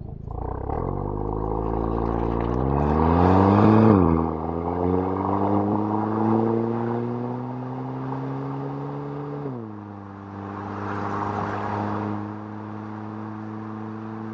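Audi TT engine pulling hard and climbing in pitch for about four seconds, then dropping sharply at a gear change. It climbs again more slowly, drops once more about ten seconds in and runs steadier. Wind and road rush swells twice along with it.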